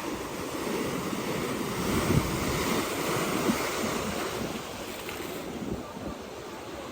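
Sea waves washing onto a beach, with wind buffeting the microphone. The surf swells about two seconds in and eases off after about five seconds.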